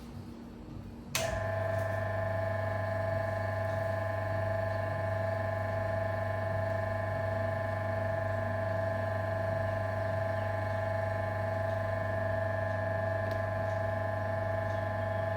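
Mazzer Philos flat-burr espresso grinder's motor switched on with a click about a second in, then running empty with a steady hum and whine.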